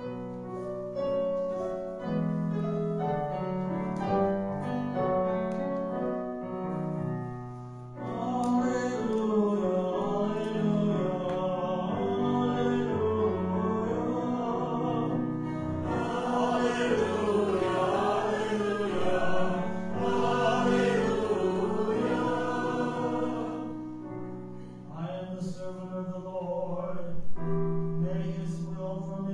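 Choral hymn with piano: piano notes first, then choir voices come in about eight seconds in.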